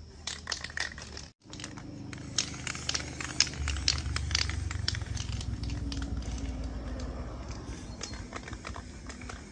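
Quick, irregular small clicks and rattles over a low steady hum.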